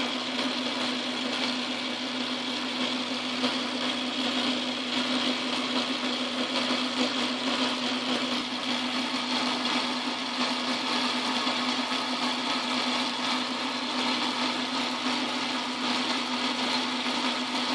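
Craftsman Atlas metal lathe running steadily with a constant hum while the cutting tool turns down a small piece of stock.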